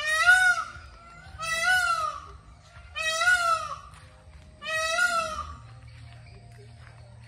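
Indian peafowl calling four times, loud nasal calls about a second and a half apart, each rising then falling in pitch and led by a softer short note.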